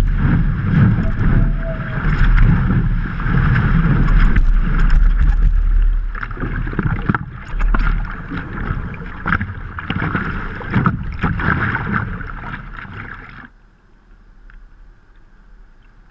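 Water rushing and splashing against a stand-up paddleboard riding a breaking wave, heard close up through a camera mounted on the board, with wind buffeting the microphone. After about six seconds the rush breaks up into choppier splashing, and it falls off sharply a few seconds before the end.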